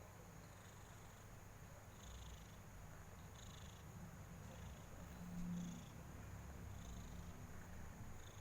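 A domestic cat purring, a low rumble that swells and eases, loudest about five and a half seconds in: the purr of a contented cat.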